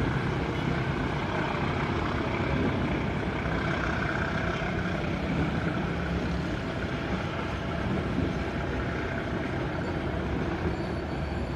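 Passenger train coaches rolling past at moderate speed, a steady rumble of steel wheels on the rails with no break.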